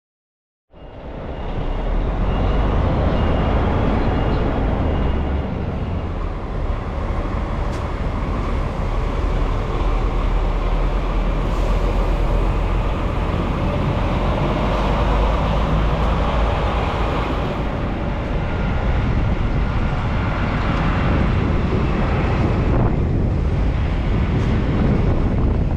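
DAF XF truck's diesel engine and running noise as the truck drives slowly, heard from a camera mounted outside the cab: a steady, deep rumble that cuts in abruptly about a second in.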